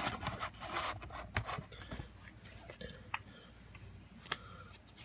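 Hands handling a VHS cassette and its paper ad insert: a burst of rustling near the start, then faint scattered light clicks and taps.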